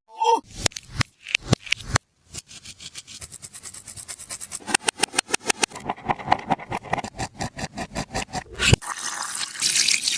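A taba squishy, a homemade tape-wrapped squishy toy, being squeezed and handled by hands. A brief squeak at the start and a few single clicks give way to several seconds of fast, crinkly clicking and crackling, then a hissy rustle near the end.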